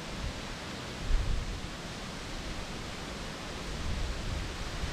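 Steady wind noise on the microphone outdoors, with low rumbling gusts about a second in and again around four seconds.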